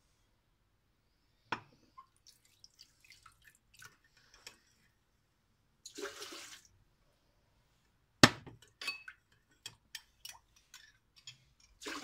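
Water poured from a glass jug into a stainless-steel mixer bowl in a short splash of about a second, among light clicks and clinks of glassware, with one sharp knock a little past the middle.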